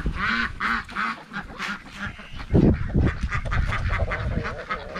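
Farmyard poultry calling over and over, a flock gathered to be fed scattered feed. A few low thumps come about halfway through.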